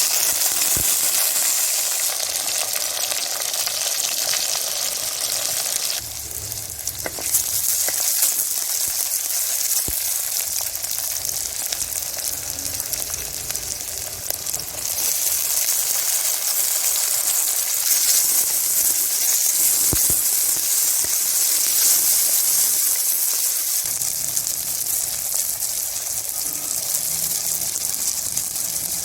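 Food sizzling as it fries in oil in a pan, a steady loud hiss with a few sharp clicks of stirring now and then.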